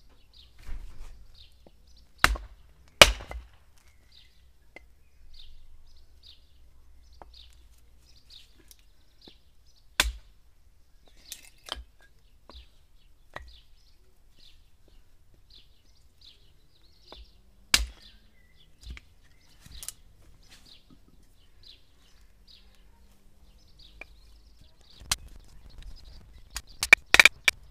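Wood being chopped into kindling: sharp single chopping strikes a few seconds apart, with a quick run of strikes near the end. A small bird chirps over and over in the background, about once a second.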